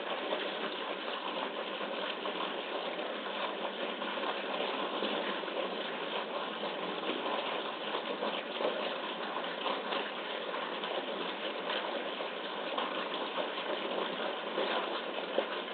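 Steady rushing noise of running water in the polar bear pool.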